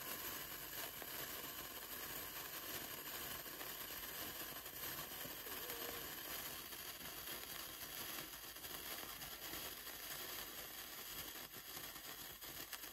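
Sparkler candle on a birthday cake fizzing and crackling steadily.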